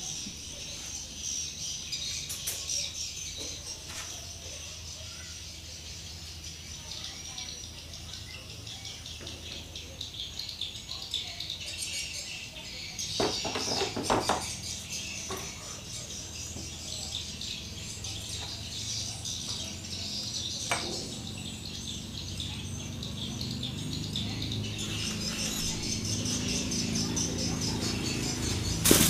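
Birds chirping steadily in the background, with a few short knocks and clinks, the loudest cluster about halfway, as the gears are worked out of a scooter's open final-drive case.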